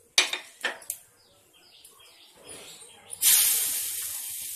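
A few sharp taps as rice-flour roti dough is patted out on a banana leaf, then about three seconds in a loud sizzle starts suddenly as the wet dough lands on the hot tawa, fading slowly.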